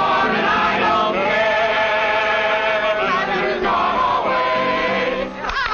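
A mixed group of young men and women singing a song together in chorus, holding long notes in harmony, with a short break near the end.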